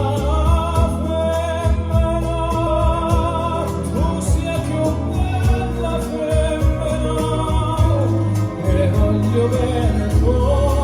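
A vinyl record playing a Neapolitan love song: a male tenor voice with vibrato over a steady instrumental accompaniment with a strong bass.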